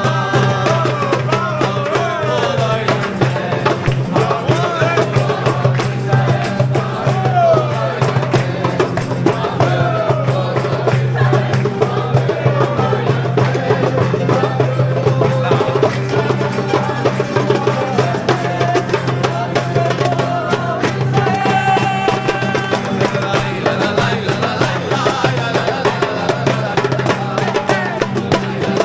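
Background music with singing and percussion.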